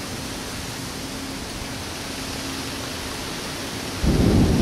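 Steady rush of heavy rain, then about four seconds in a sudden loud, low rumble of thunder breaks in.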